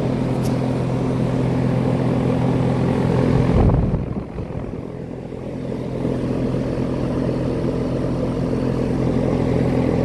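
Trane central air conditioner's outdoor condensing unit running: a steady electrical hum from the scroll compressor under the rush of the condenser fan. The fan motor runs on newly replaced capacitors and is loud enough to half mask the compressor. About four seconds in there is a brief bump, and the sound goes muffled for a couple of seconds before coming back.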